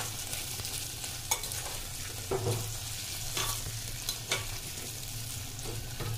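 Chopped vegetables sizzling in hot oil in an aluminium pressure cooker, stirred with a metal spatula that scrapes against the pot a few times.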